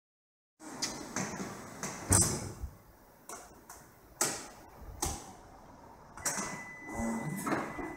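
Forklift rotator-and-clamp attachment being worked: irregular clunks and clicks of metal parts, the loudest about two seconds in. A thin steady high tone joins about six seconds in.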